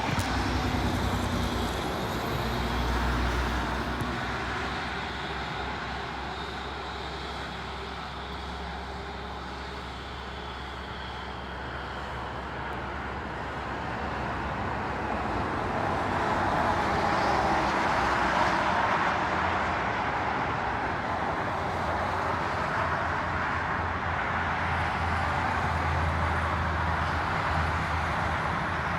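Heavy truck engine running steadily, its noise swelling about halfway through and holding there.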